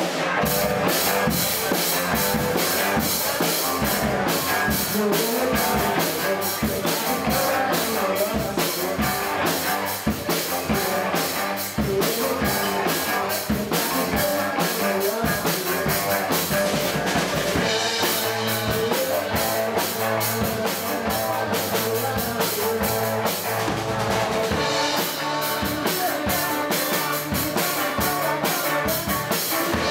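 Live rock band playing: a drum kit keeping a steady beat under electric guitars.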